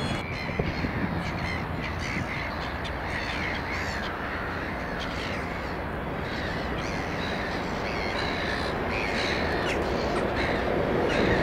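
Crows cawing again and again over a steady low rumble. The rumble grows louder near the end as an approaching 3ES4K electric locomotive and its freight train draw nearer.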